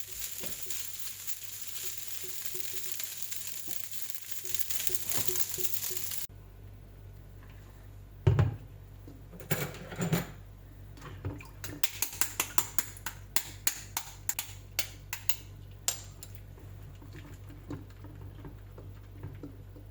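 Fried rice sizzling and being stirred in a hot pan, which cuts off abruptly about six seconds in. A quieter stretch of kitchen handling follows: a heavy knock, then a run of light clicks and taps about twice a second.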